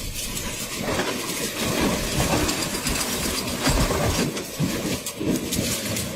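A vehicle moving fast, a steady loud rumble studded with many knocks and rattles.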